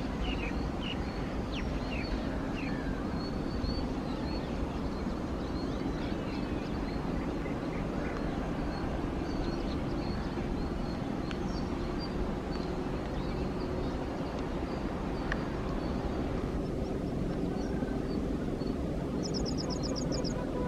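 Steady low rumble of a passenger train running away along the rails, with birds chirping throughout and a short, rapid, high-pitched trill near the end.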